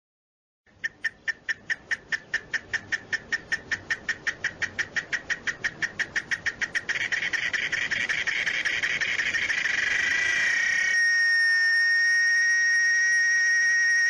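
Cicada song: a run of sharp clicking pulses, about six or seven a second and quickening, that merge into a continuous buzz about seven seconds in. Near the end it changes abruptly into a steady, high, pure whistling tone.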